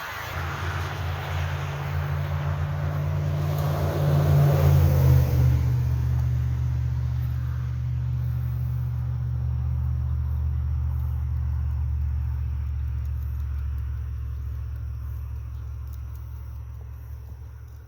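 A motor vehicle passing on the road. Its rushing noise peaks about four to five seconds in and drops in pitch as it goes by. A deep engine drone lingers after the pass and slowly fades away.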